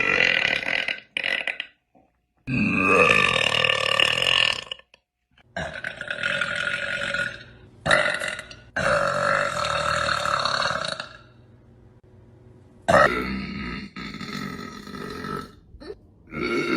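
A woman burping: a string of loud, long burps one after another, most lasting about two seconds, with short pauses between.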